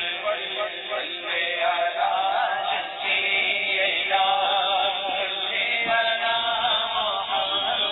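Voices chanting a melodic devotional recitation, unaccompanied, in a continuous wavering melody.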